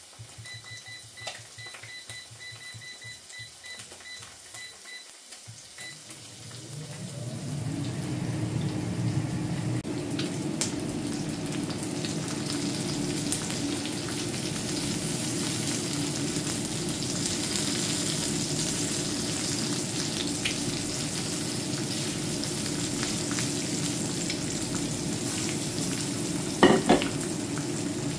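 Mushrooms and eggs frying in a pan, a steady sizzle that comes up about six seconds in and holds, with tongs turning the food. It is quieter at first, with a faint steady high tone, and there is a sharp clack near the end.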